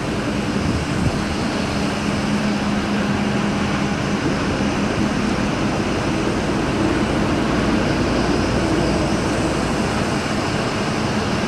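Steady cabin noise of a moving vehicle driving on a rain-soaked road: a constant hiss of tyres on water with a low engine hum underneath.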